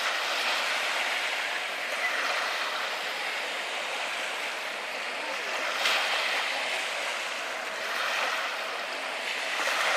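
Small sea waves lapping and washing close by, a steady rushing noise that swells and eases every few seconds, with a brief splash about six seconds in.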